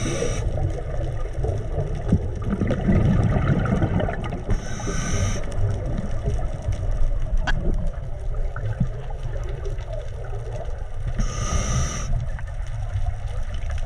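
Scuba regulator breathing heard underwater: a short hissing inhale three times, about every five to six seconds, over a steady low rumble of bubbles and water noise.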